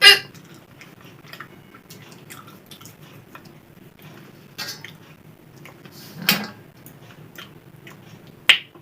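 A woman hiccupping while eating: four short, sharp hiccups a few seconds apart, the first the loudest, with faint chewing and small clicks of fingers on a plate between them.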